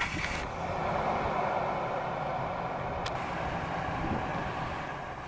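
Ford F-350 pickup's engine idling steadily, with a single short click about three seconds in.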